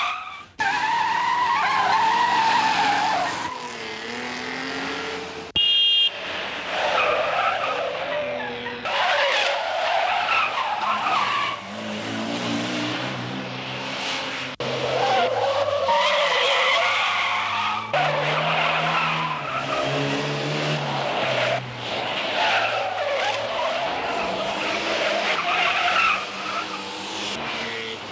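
Car tyres squealing again and again as a 1970s Ford Taunus saloon skids through hard turns, with its engine revving and easing off underneath.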